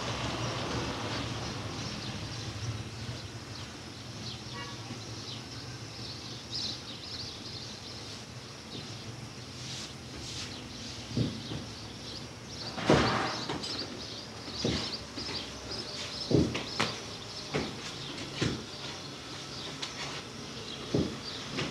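Bakery workroom sounds: a low steady hum under room noise, then scattered sharp knocks and clatter from work with tools and trays, the loudest about halfway through.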